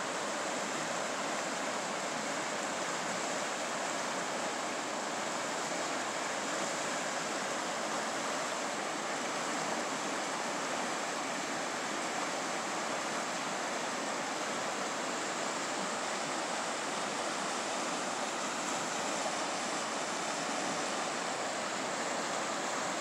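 A wide river running fast over shallow rapids: a steady, even rush of water.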